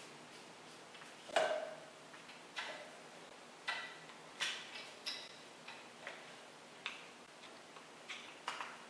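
About a dozen irregular sharp clicks and light knocks, the loudest about a second and a half in, as a hose stopper is fitted onto an air hose at the reel's roller guide and worked with a screwdriver.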